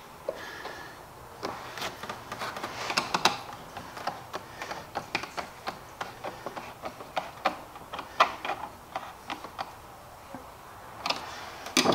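Irregular light clicks and knocks of plastic and metal parts being handled as the air intake tube and air box are refitted on the engine, with a louder clunk near the end.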